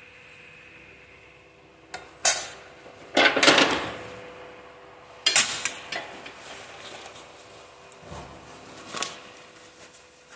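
Metal motorcycle mudguards and handlebar tubes knocking and clattering against each other while being handled and unwrapped from bubble wrap, loudest about three seconds in, with further knocks about five and nine seconds in. A faint steady hum runs underneath.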